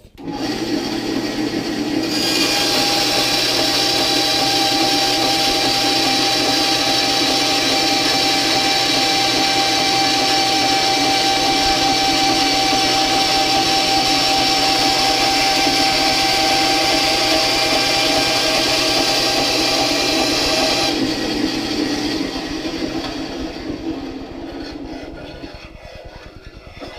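10-inch benchtop bandsaw, geared down with a speed reduction kit for metal cutting, starting up and sawing through 1/8-inch metal plate: a steady hiss with a whine for about twenty seconds. The cut finishes and the saw is switched off and runs down near the end.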